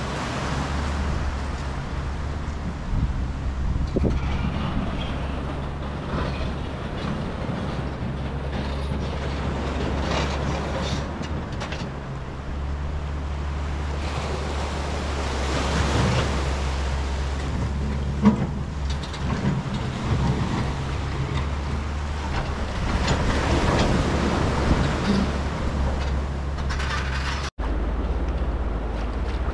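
Wind rumbling on the camera microphone over a steady outdoor wash, with a gusty rise and fall. The sound cuts out for an instant near the end.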